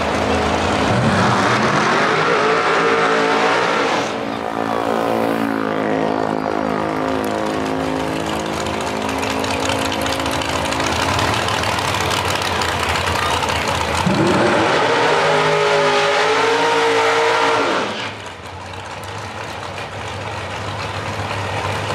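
High-horsepower drag race car engines at the starting line: loud revving in rising sweeps during burnouts, then running steadily, then a second loud burst of revving from about fourteen seconds until about eighteen, when it drops back.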